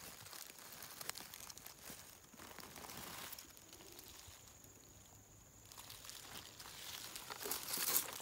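Dry leaf litter and pine needles crackling and rustling as they are disturbed while a mushroom is picked from the forest floor, irregular and crackly, quieter in the middle and busier near the end.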